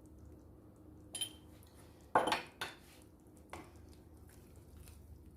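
A few short clinks and knocks of a metal utensil against a cooking pot, the loudest about two seconds in.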